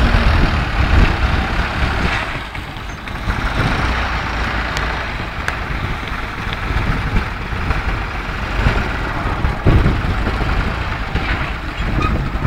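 New Holland 3630 tractor's diesel engine running under load while its front-end loader digs into a gravel pile and lifts a full bucket: a dense, steady rumble with a few sharp clicks.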